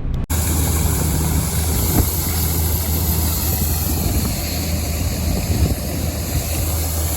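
Heavy diesel farm machinery running steadily, a low engine hum with a high, even whine over it.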